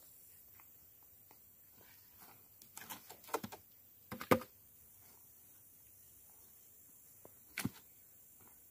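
Scattered wooden knocks and clicks from a branch being handled against a freshly milled log and slab, with footsteps on dry ground. The loudest knock comes about four seconds in and another near the end.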